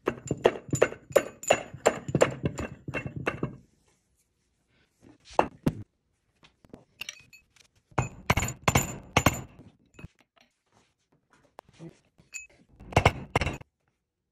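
Dull thunks of metal being knocked, about three a second at first, then another burst in the middle and a short one near the end: the Y-axis ball screw being driven into its pair of new angular contact bearings in a steel housing plate.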